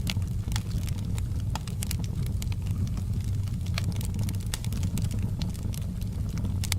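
Fireplace fire crackling, irregular sharp pops and crackles over a steady low rumble.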